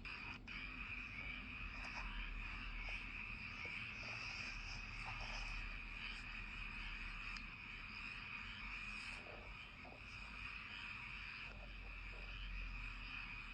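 Night chorus of frogs calling with insects trilling, a steady dense wall of calls with scattered single calls standing out over it.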